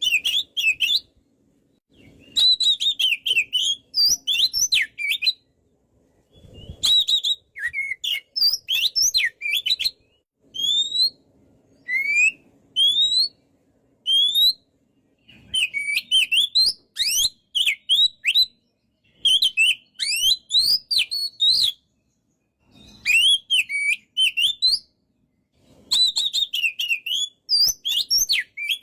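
Oriental magpie-robin (kacer) in full song: loud bursts of rapid, varied whistled phrases separated by short pauses, with a few clear single rising whistles around the middle.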